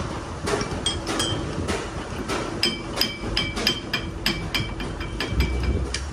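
Hammer striking metal again and again: a few scattered blows, then a fast regular run of about three to four blows a second, each ringing with a clear metallic tone.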